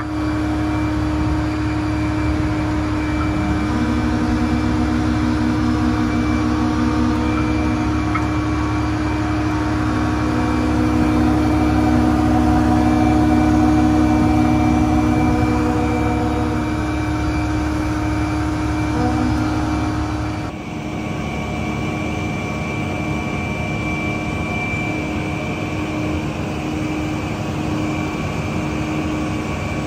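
Fire truck's engine running steadily to power the hydraulics of a Seagrave Aerialscope tower ladder as the aerial is raised, with a steady hum and an extra tone that comes and goes several times in the first two-thirds. The low rumble drops abruptly about two-thirds of the way through.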